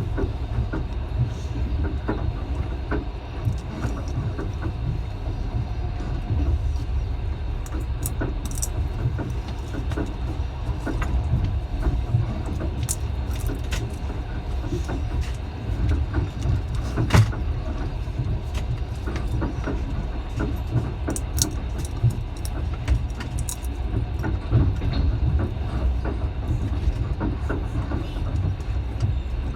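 Train running along the track: a steady low rumble with scattered knocks and rattles, and one louder knock a little past the middle.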